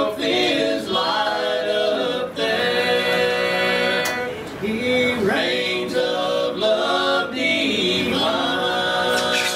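Male vocal quartet singing bluegrass gospel a cappella in four-part harmony (lead, tenor, baritone and bass), the voices moving together and holding a long chord near the end.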